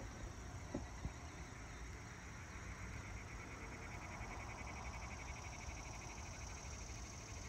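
Faint outdoor ambience of insects: a steady high drone and a rapid pulsing trill over a low rumble, with two small clicks about a second in.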